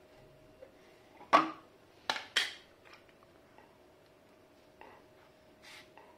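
A plastic ladle knocking and scraping against a plastic tray of raw ground meat. There is a sharp knock about a second in, two more close together a second later, then a few fainter taps and scrapes.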